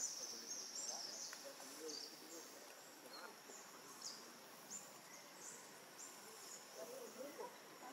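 Faint outdoor ambience: short high-pitched chirps recurring every second or so, loudest in the first second and a half, over a faint low murmur of distant voices.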